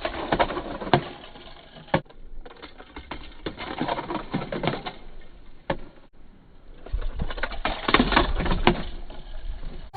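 Irregular clicking and knocking of small hard objects, with a low rumble underneath in the last few seconds.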